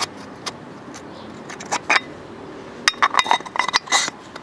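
Light metallic clicks and clinks as a piston ring is fitted into a Honda SH 125i scooter cylinder bore and squared up with the piston to check its end gap. Single clicks come first, then a quick run of clinks about three seconds in.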